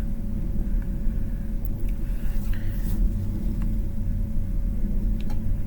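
Steady low rumble and hum of running bench equipment, with a faint constant tone over it and a few faint light clicks.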